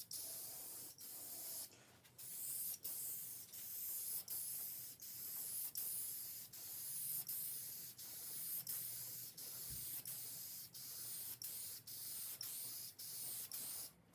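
Aerosol can spraying an oil-based wood finish, hissing in short, even bursts about every two-thirds of a second, with a longer break about two seconds in.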